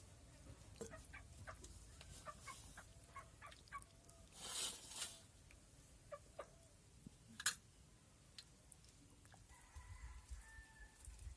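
Faint clucking of fowl among scattered light clicks and knocks, with a short hiss about four and a half seconds in and a single sharp click about seven and a half seconds in.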